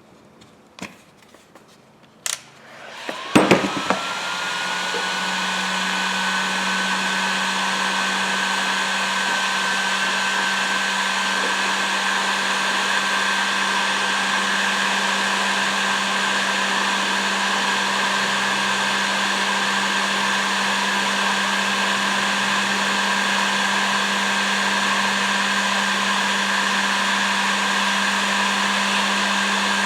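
A few clicks and knocks, then a heat gun is switched on about three seconds in. Its fan whine rises quickly and settles into a steady high whine over a steady hum, running on as it shrinks heat-shrink tubing onto plier handles.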